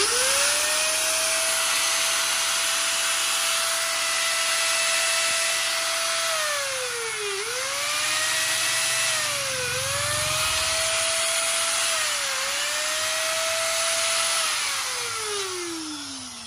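Long-body 100 V electric angle grinder running free in the hand. It spins up at once to a steady high whine and dips in pitch and picks back up three times. Near the end it is switched off and winds down with a falling whine. It runs strongly.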